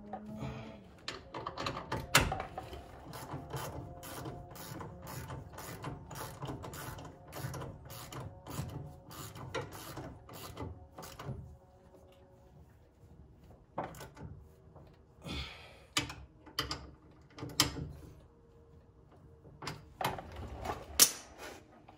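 Hand ratchet clicking in quick repeated strokes, two or three clicks a second, as a bolt on a disc brake caliper is run down. After about eleven seconds the clicking stops, leaving a few scattered clicks and tool knocks, the sharpest near the end.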